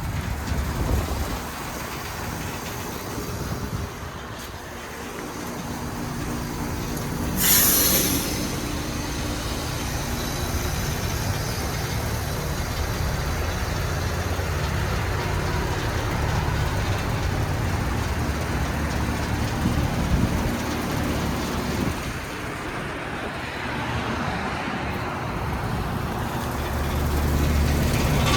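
Heat pump outdoor units running with a steady low hum. About seven seconds in comes a short, loud whoosh of refrigerant, typical of the reversing valve shifting at the end of a defrost cycle. Near the end the low hum grows stronger.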